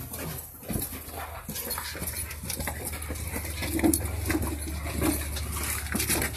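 Small dogs whimpering and yelping in short cries, with rustling and scuffing of handling noise throughout.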